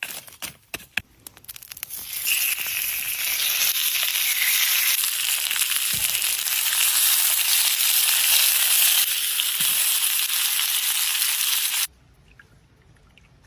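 Fish frying in hot oil, a loud steady sizzle. It is preceded by a couple of seconds of scattered crackles and clicks, and the sizzle cuts off suddenly near the end.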